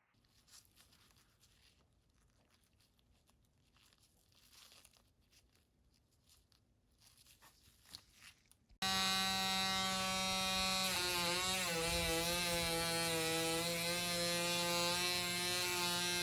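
Faint handling clicks and rustles, then a small electric power tool switches on with a sudden start and runs loud and steady. Its motor pitch wavers for a moment, as if briefly loaded against the work.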